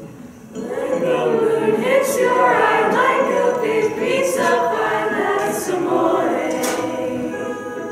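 Several voices singing together like a small choir, coming in about half a second in and carrying on steadily.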